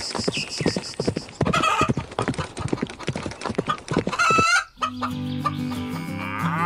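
Hen clucking in quick short clucks, with brief higher cackles about one and a half and four seconds in. Then background music with low sustained notes comes in at about five seconds.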